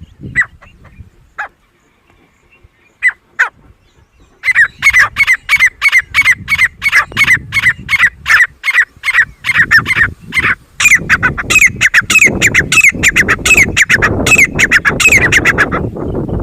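Grey francolin calling. After a few scattered notes, a long run of loud, harsh, quickly repeated notes starts about four seconds in, at roughly three a second. It breaks off briefly near eleven seconds, then starts again.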